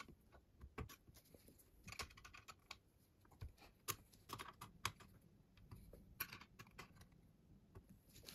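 Faint, irregular small metal clicks and ticks of a hex key tightening the mounting bolts of a 3D printer's heated bed.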